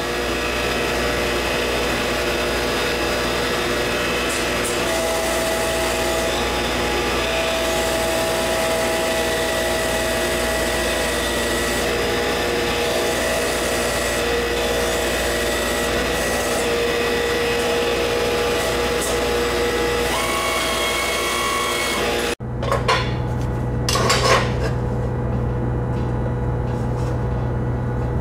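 Hydraulic press brake running steadily while its round-nosed punch slowly bends an aluminum sheet, with a few held tones changing in pitch as the ram works. About two-thirds of the way in it cuts off sharply, leaving a steady low hum with a couple of short scratching sounds.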